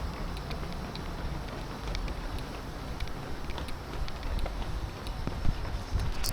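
Wind rumbling on the microphone of a camera carried while jogging, with faint scattered footfall-like taps.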